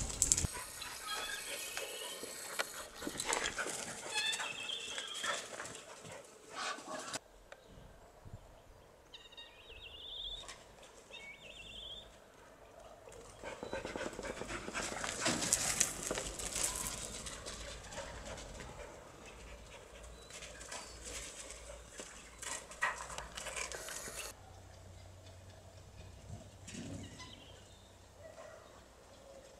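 Farmyard sounds of a rabbit and a dog running on gravel and dirt: scattered scuffs and patters of paws, with short high chirps now and then. The background changes abruptly several times.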